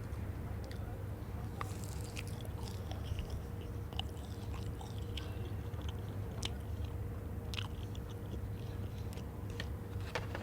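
A person biting and chewing a crunchy snack, with scattered crisp crackles, over a steady low hum.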